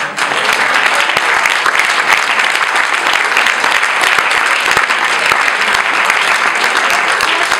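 Audience applause: many hands clapping together, starting suddenly and keeping up at an even level.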